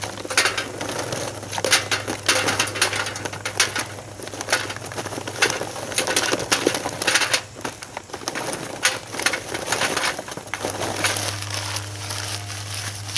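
Charcoal briquettes clattering and rattling as they are poured from a bag into a metal chimney starter, stopping about ten seconds in. Near the end, quieter rustling of newspaper being handled.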